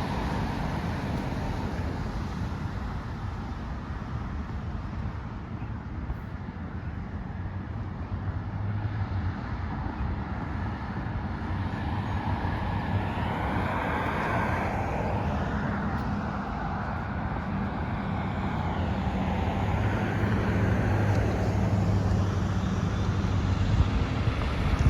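Road traffic: cars driving past with steady tyre and engine noise, a deeper engine hum swelling twice as vehicles go by and the noise growing louder near the end.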